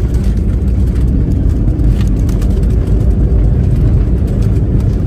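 Passenger airliner on the runway during landing, heard from inside the cabin: a loud steady low rumble with light rattles.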